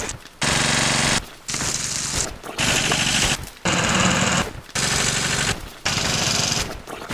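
Rapid mechanical rattling in six bursts of about a second each, each one starting and stopping abruptly.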